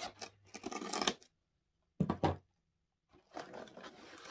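Scissors cutting and scraping through the tape on a cardboard box, then two knocks from the box being handled about halfway through and rustling cardboard near the end, broken by two short gaps of dead silence.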